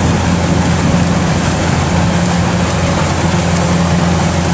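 Kubota DC-105X rice combine harvester running steadily while cutting and threshing ripe rice: a constant low diesel drone over a dense machine rush.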